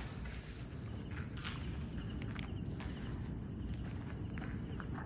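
Crickets chirping steadily, with a few footsteps and a low rumble underneath.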